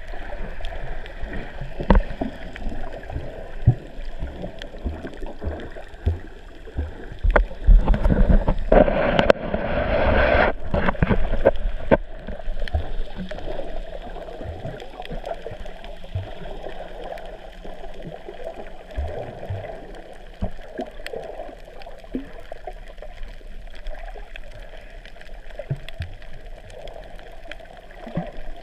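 Muffled underwater sound heard through a camera's waterproof housing: a steady wash of moving water with scattered clicks and knocks. It grows louder and fuller for about two seconds, from roughly eight seconds in, then cuts off suddenly.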